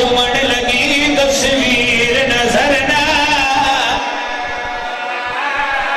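A man's voice chanting a Muharram lament in a drawn-out melodic style, with held, wavering notes that drop away about four seconds in.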